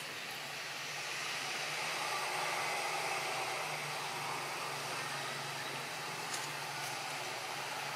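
Steady rushing background noise that swells slightly a second or two in, with a faint low hum underneath.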